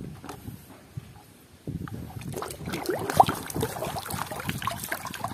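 Water sloshing and splashing as a hand churns muddy plastic toys around in a tub of water, with small clicks of plastic knocking together, starting a little under two seconds in. Before that, only faint knocks of plastic toys being handled in a plastic basket.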